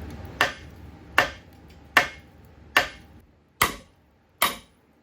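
Hammer striking the steel steering knuckle of a Dana 60 front axle to break it loose from the ball joints: six sharp blows, evenly spaced a little under a second apart.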